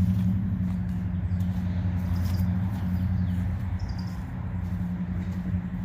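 A mower's engine running steadily, slowly getting quieter, with a few bird chirps over it.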